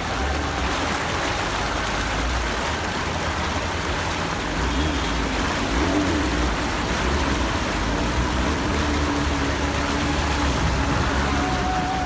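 A vehicle's engine running with a steady low rumble while it moves through deep floodwater, the water rushing and washing around it.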